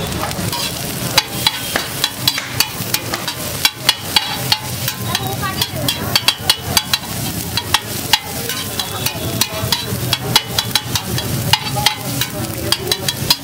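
Slotted metal spatula chopping and scraping chopped tomato masala on a large flat griddle, giving rapid metal clanks several times a second over the sizzle of the frying.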